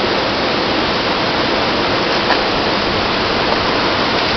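Steady rushing of a waterfall and fast white water pouring into a drop pool.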